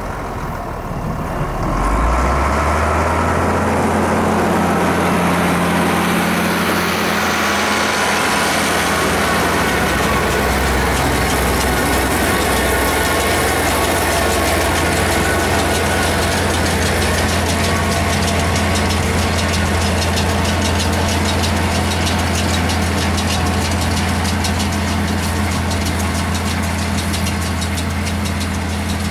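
International Harvester 1066 tractor's turbocharged six-cylinder diesel engine comes up in speed about two seconds in, then runs steadily, with a fast mechanical clatter over it.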